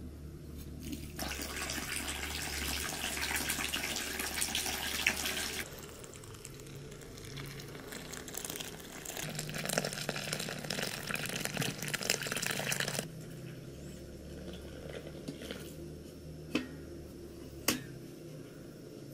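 Water poured from an enamel kettle into flour in a metal basin: a steady splashing stream from about a second in to about thirteen seconds, with a short break around six seconds. After it stops, two sharp knocks near the end.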